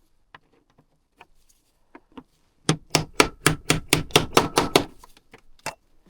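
A few light clicks, then a hammer tapping quickly on a metal part: about a dozen sharp knocks, roughly five a second, and two more spaced knocks near the end.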